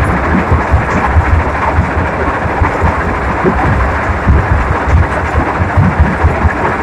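Heavy earthmoving machine running, a steady loud rumble with an uneven low throb.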